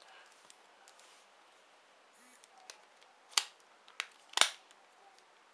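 Nokia 5800 XpressMusic phone's plastic casing being handled and fitted together: three sharp clicks about three and a half, four and four and a half seconds in, the last the loudest.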